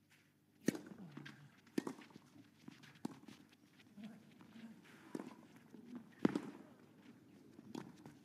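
Tennis rally on clay: racket strings striking the ball, six sharp cracks at uneven gaps of about one to two seconds.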